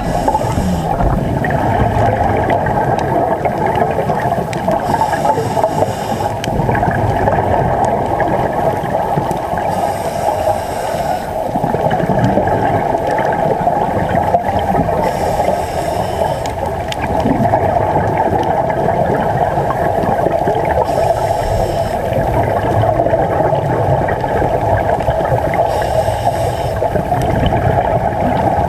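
Scuba diver breathing through a regulator underwater, with a burst of exhaled bubbles about every five seconds over a steady rumble.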